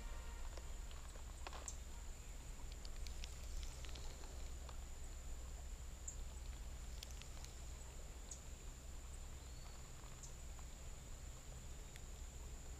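Quiet creek-side ambience: a low steady rumble of flowing water and wind on the microphone, a faint steady high-pitched whine, and scattered light clicks from a spinning reel being handled.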